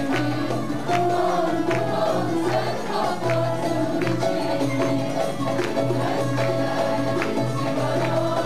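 Mixed choir singing a Turkish song about soldiers' longing, accompanied by plucked strings and hand percussion keeping a steady beat.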